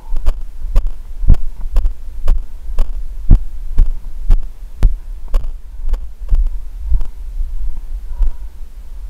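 Footfalls of the runner wearing the camera on a dirt trail, heavy low thuds about two a second jolting the body-mounted camera, over a steady low rumble. The steps soften near the end.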